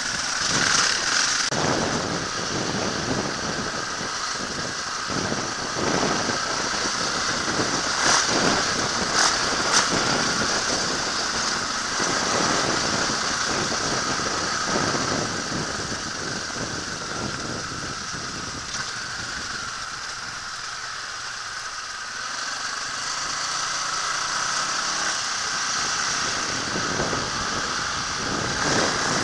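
Dirt bike engine running under load on a rough, stony trail climb, the throttle rising and easing, with knocks and rattles from the bike over the bumps. The engine eases off for a few seconds about two-thirds of the way through, then picks up again.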